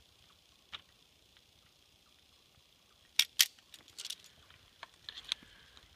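Handheld tubing installation tool forcing green sap tubing onto a saddle fitting's barbed spout: two sharp clicks a little past three seconds in, then a few lighter clicks as the tool is worked off the fitting.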